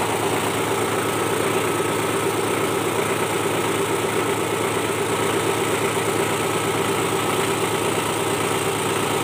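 Small grinding mill (mesin giling) running steadily while rice husk is fed into its hopper for a second pass through the mill, which grinds it finer into bran (bekatul). The sound is a continuous machine hum with a grinding hiss.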